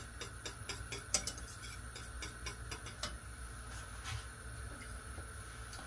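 Wire whisk clicking against the inside of a stainless steel saucepan as thickened gravy is stirred, in quick irregular ticks that thin out after a few seconds, over a faint steady hum.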